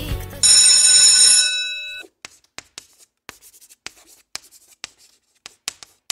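A bright bell-like chime rings about half a second in and fades over a second and a half. Then chalk taps and scratches on a blackboard as words are written, in short separate strokes.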